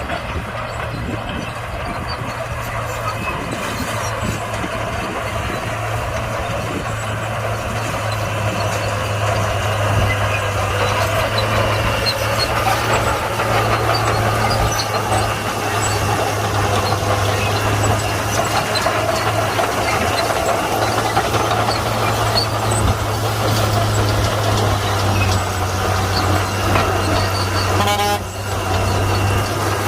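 Komatsu D41P crawler bulldozer working: its diesel engine runs steadily under load over a dense clatter of steel tracks, growing louder through the first third. A short dip comes near the end.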